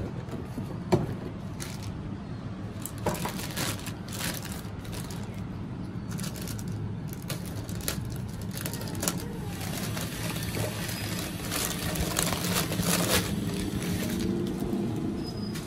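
Unpacking sounds: a knock from the cardboard box about a second in, then the crinkling and rustling of a clear plastic bag as it is cut open with a knife and the carbon steel pan is pulled out. A steady low background hum runs underneath.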